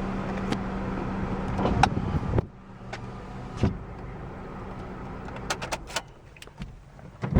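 2008 Honda Civic's 1.8-litre four-cylinder engine idling steadily, then cutting out about two seconds in. A series of clicks and knocks follows.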